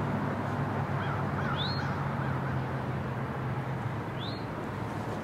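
Steady low hum of outdoor background noise, with a bird giving a short, high, rising chirp twice, about two and a half seconds apart.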